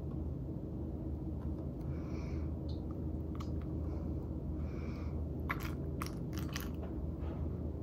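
Vinegar poured from a red plastic cup into plastic egg-dye cups: soft splashing and light clicks and taps of plastic cups being handled, over a steady low hum. A cluster of sharp clicks comes about five and a half to seven seconds in.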